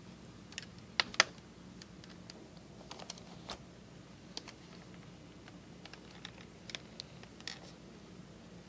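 Scattered clicks and taps from a Toshiba Portege convertible tablet laptop being handled, with its screen touched and the laptop moved. Two sharp clicks come about a second in, followed by lighter, irregular taps.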